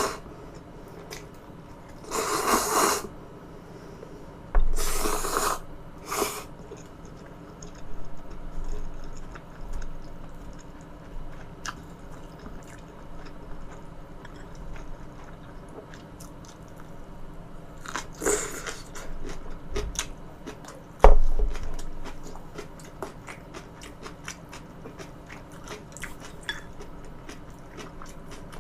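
Close-miked chewing and biting: wet mouth clicks and soft crunches, with a few louder bites at irregular intervals.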